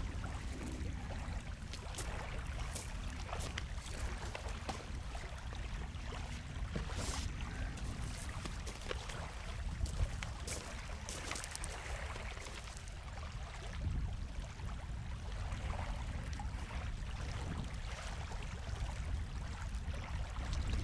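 Lakeshore ambience: water lapping and trickling at the shore over a steady low rumble, with scattered light clicks and knocks.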